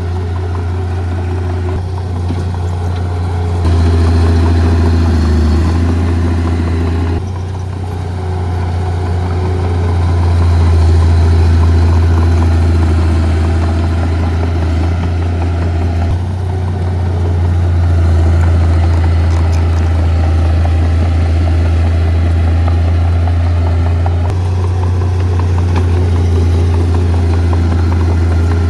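Diesel engine of heavy earth-moving equipment running loudly and steadily, its level and pitch stepping up and down a few times as the throttle or load changes.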